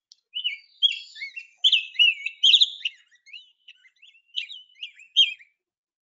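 Rose-breasted grosbeak singing: a rich, robin-like song of quick whistled notes that rise and fall, repeated phrase after phrase, with a deep, refined quality.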